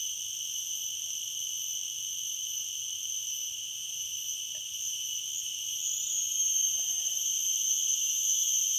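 Cicadas (garengpung) singing: a steady, high, shrill drone that swells louder about six and a half seconds in.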